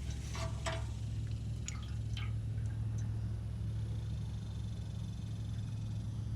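Jeep 4.0L inline-six engine idling with a steady low hum. A few light, irregular clicks come in the first two seconds.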